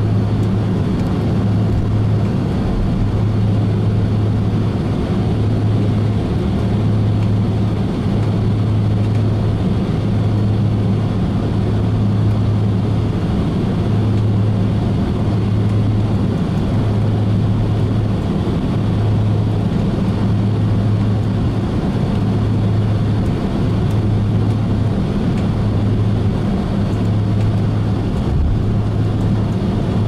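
Jet airliner cabin noise with the engines running: a steady rush with a low hum that swells and fades about every two seconds.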